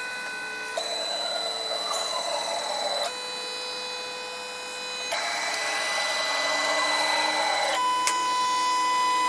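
Stepper motors of a DIY CNC router driving its axes back to the home position: a steady multi-pitched whine that changes in steps every two or three seconds as a different axis moves, with a tone that slides downward in two of the stretches.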